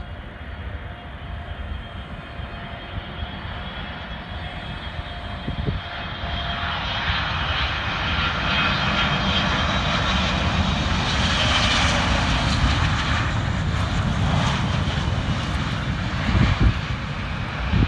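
Boeing 777 jet engines on final approach and landing. A whining roar grows louder as the airliner comes in low and passes, is loudest around the middle, then eases into a lower rumble as it rolls out on the runway.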